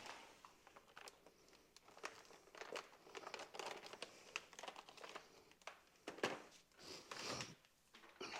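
Faint, irregular rustling and light clicks from handling, with no steady spray or motor running.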